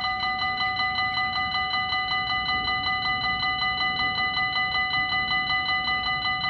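Level crossing's electronic warning bell ringing with a fast, even, chime-like pulse, the signal that a train is approaching the crossing.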